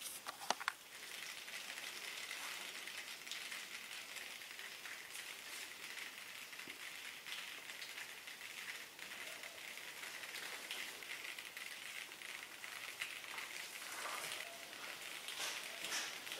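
Snow foam fizzing and crackling as its bubbles pop while it dwells on and slides down a car's paintwork, a steady fine crackle. Two sharp clicks about half a second in.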